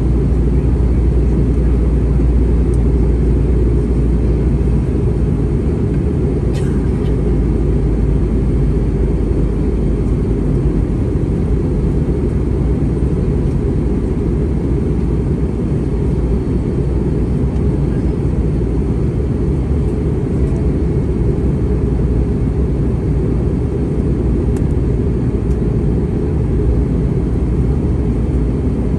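Steady cabin noise of an Airbus A320-232 in flight: an even low rumble of airflow and engines.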